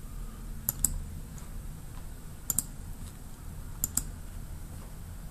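Computer mouse button clicked three times, each a sharp double tick of press and release, over a low steady hum.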